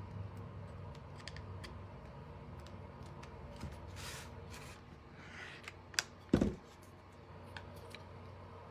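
Light taps and clicks of thin painted wooden slats and a hot glue gun being handled and pressed down on a tabletop, over a low steady hum. About six seconds in come a sharp knock and a heavier thump, the loudest sounds.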